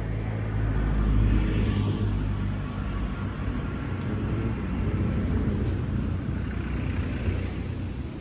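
Road traffic going by: a motor vehicle's engine running steadily at close range, swelling slightly about a second in.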